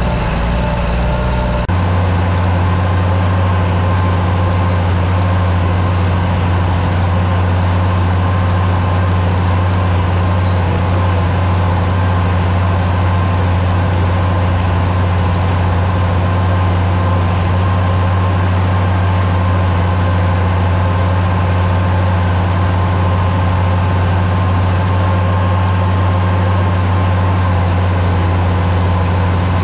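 Oliver 1550 tractor engine running steadily as the tractor drives across the field, heard from the driver's seat, with a steady whine above the engine note. The engine note shifts slightly just under two seconds in, then holds even.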